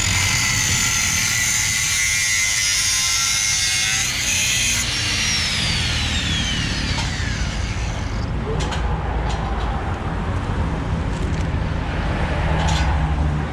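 Angle grinder running at speed, switched off about five seconds in and winding down with a falling whine. A few sharp taps follow, over a steady low hum.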